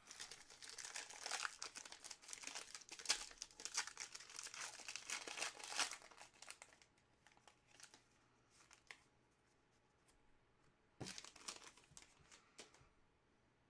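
Trading card pack wrapper crinkling and tearing in the hands, busy for about six seconds, then a few scattered crackles and a second short burst of crinkling about eleven seconds in.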